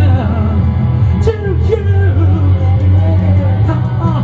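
Loud rock music: electric guitar over a steady bass, with a man singing, and a hi-hat beat ticking in from about halfway through.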